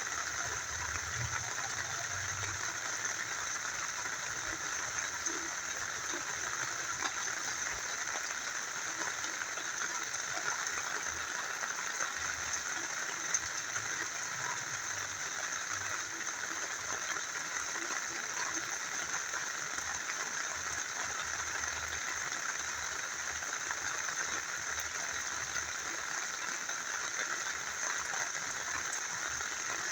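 A small river flowing steadily, with rain falling; an even rushing hiss scattered with faint ticks.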